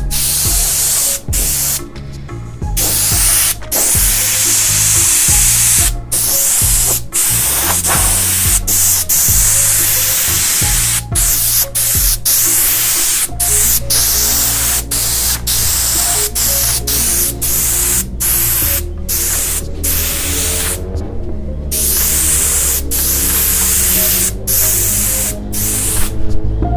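Airbrush spraying white paint in short bursts, its air hiss starting and stopping about once a second as the trigger is worked to dot small stars onto fabric. Background music runs underneath.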